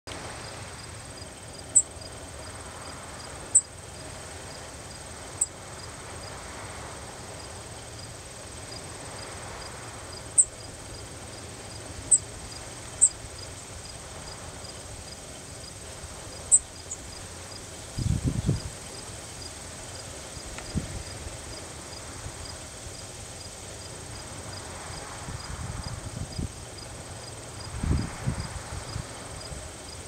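Thin, high single call notes from a small songbird, seven of them a second or a few seconds apart in the first half. They come over a steady pulsing chirp of crickets, about three pulses a second. A few low rumbles come in the second half.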